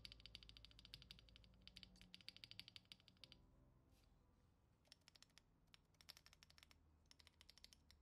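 Faint, rapid clicking from a partly built custom 60% keyboard with KTT Matcha tactile switches and Durock V2 stabilizers, as the spacebar and other stabilized keys are tapped over and over. A long run of quick clicks is followed by a pause and then several shorter runs. The builder reckons the Enter stabilizer is catching on something.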